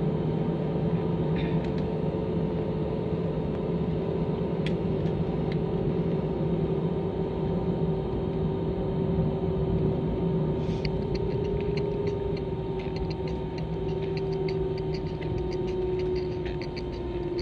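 Cabin sound of an Airbus A320 taxiing: the jet engines run at low power as a steady drone, with a hum that slowly sinks a little in pitch. Faint light ticking comes in about eleven seconds in.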